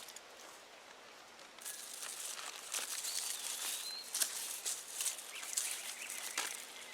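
Digging by hand through loose soil for potatoes: a run of scratchy rustles and scrapes starting about a second and a half in, with a short bird call partway through.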